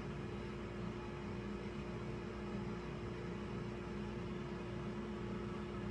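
Steady machine-like hum: a constant single tone over a low drone and hiss, unchanging throughout, with no distinct events.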